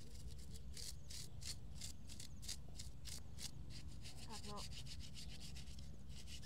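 Bristle scrub brush rubbing back and forth over a wet foot, in quick regular scraping strokes of about four a second.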